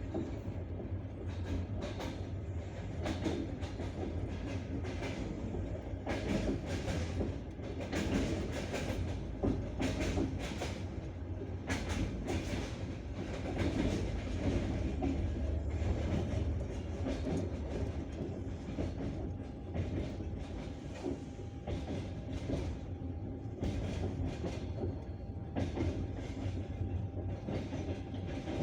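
Passenger train wheels clattering over rail joints with a steady running rumble, heard from inside the carriage, the clicks coming irregularly throughout. A faint, thin, steady tone joins in during the second half.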